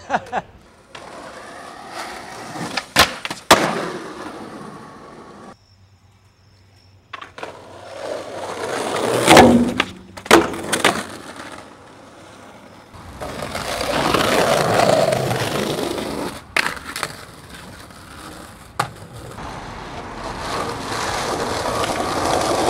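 Skateboard wheels rolling over concrete paving, broken by sharp clacks of the board being popped and landed. A pair of clacks comes a few seconds in and a loud hit near the middle, with more clacks later between stretches of rolling that grow louder.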